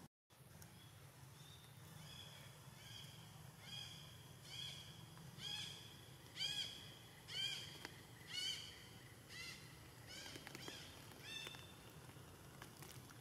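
An animal calling: a series of about a dozen short, high, arched notes, about one a second, growing louder towards the middle and then fading.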